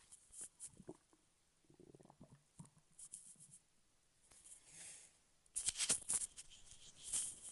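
Stomach growling: faint, short low gurgles, with scratchy rustling noises that are loudest about six seconds in.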